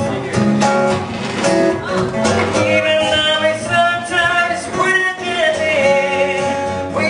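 Live band playing a song: a voice singing a melody over strummed guitar.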